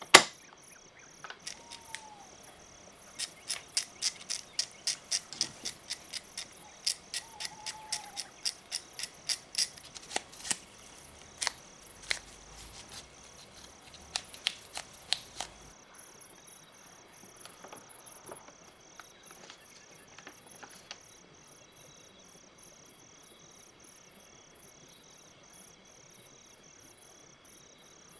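A run of sharp clicks, two or three a second, from about three to fifteen seconds in, as the small metal parts of a toy tank's mechanism are handled. Under it, a steady, evenly pulsed high chirping.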